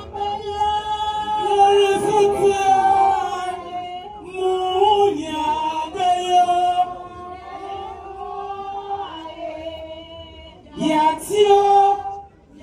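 A group of women singing together in long, held notes. The singing drops off briefly shortly before the end and comes back in loudly.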